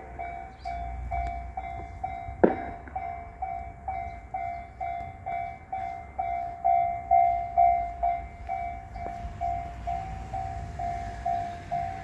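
Japanese railway level crossing's electronic warning bell dinging steadily, about two strikes a second, signalling that a train is approaching. There is a single sharp knock about two and a half seconds in.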